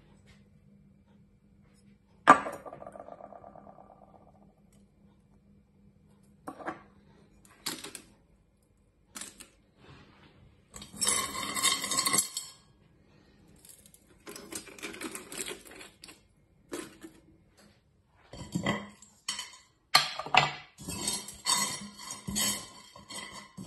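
A single sharp metallic clang that rings on for about two seconds, then repeated bouts of clinking and scraping as hands rummage through cast-aluminium scraps and dross in a metal pot.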